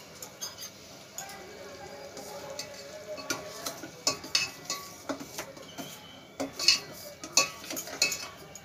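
A metal ladle stirs dal in a stainless steel pot, scraping and clinking against the pot's sides and bottom. The clinks get more frequent and louder from about halfway through.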